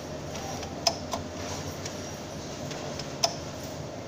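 Three short, sharp clicks, two close together about a second in and one just past three seconds, over a steady low hum.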